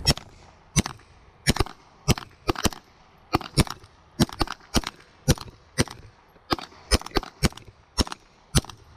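Semi-automatic pistol fired in a rapid string of about twenty shots over several seconds, irregularly spaced, with some fired as quick pairs.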